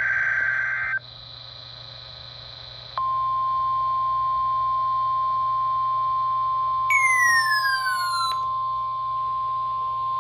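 The last second of an Emergency Alert System SAME data burst, a harsh digital warble, then after a short gap the steady single-pitch NOAA Weather Radio 1050 Hz warning alarm tone. About seven seconds in, a falling whistle slides down in pitch over about a second on top of the tone.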